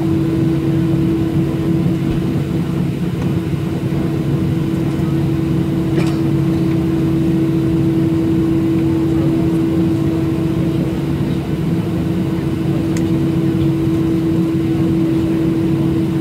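Steady drone of a Boeing 737-700 taxiing with its CFM56 engines at idle, heard inside the passenger cabin as a constant low hum with a steady tone.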